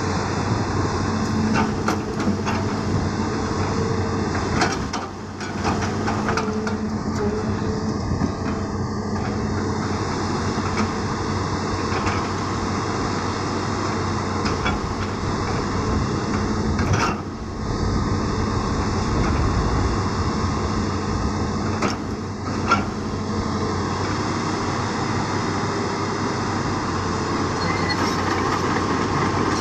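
Hitachi Zaxis 200 hydraulic excavator's diesel engine running steadily under load while it digs, with a few short knocks as the bucket works the soil.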